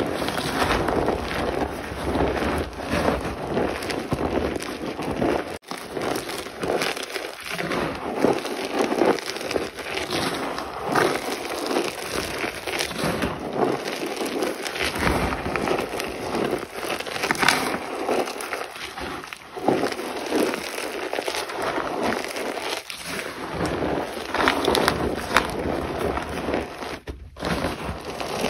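Blocks of gym chalk being crushed and crumbled: a dense, continuous run of crisp crunching crackles, broken off briefly about five seconds in and again near the end.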